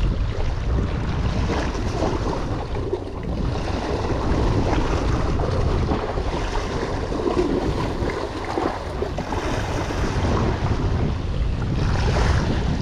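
Small sea waves washing and splashing against a rock ledge, with wind buffeting the microphone.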